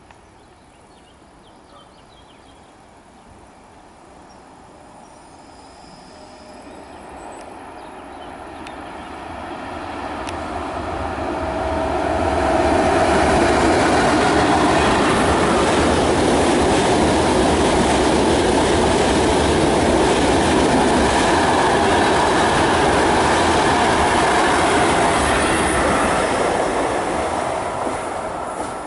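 Frecciabianca electric passenger train passing over a railway viaduct. Wheel and rail noise grows over the first dozen seconds, stays loud for about thirteen seconds as the coaches go by, and fades near the end.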